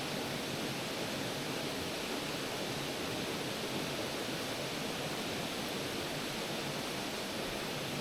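Steady rush of a creek and small waterfall running.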